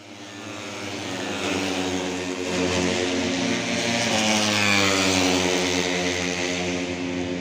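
Race motorcycle engine running on the circuit, growing louder and dipping slightly in pitch as it passes about four to five seconds in.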